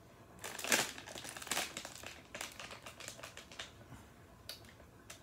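Plastic SweeTarts Ropes Bits candy bag crinkling as it is handled, in a run of irregular crackles starting about half a second in and thinning out after three or four seconds.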